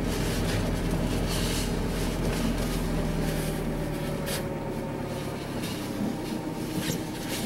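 A car's engine and tyres heard from inside the cabin while it drives slowly on a snow-covered road: a steady engine hum under road noise, dropping slightly in pitch about halfway through, with a few faint knocks.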